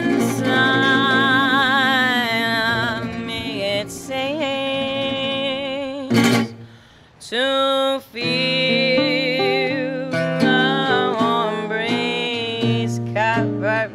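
A woman singing a slow song in long, wavering held notes, accompanied by a gypsy-jazz-style acoustic guitar with an oval soundhole playing chords. There is a brief break in the voice about seven seconds in, then the singing picks up again.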